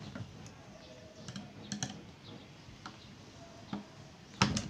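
Scattered light clicks and taps of metal on metal as an airgun's action and trigger guard are handled and a hex key is worked, with a couple of louder knocks near the end.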